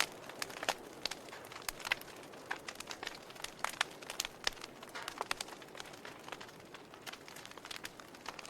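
Wood fire burning in a fireplace: irregular crackles and sharp pops, several a second, over a soft steady hiss.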